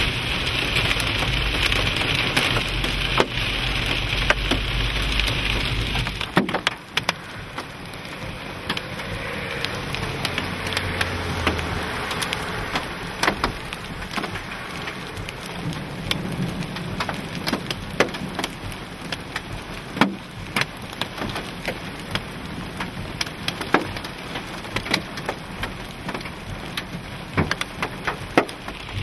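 Heavy rain on a car, heard from inside with a low rumble underneath. About six seconds in the sound cuts to the open air, where steady rain falls and scattered hailstones strike a gravel drive with sharp, irregular clicks.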